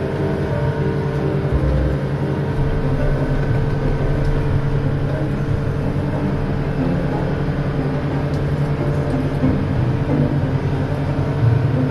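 Fishing boat's engine running steadily while underway, a constant drone with water rushing along the hull.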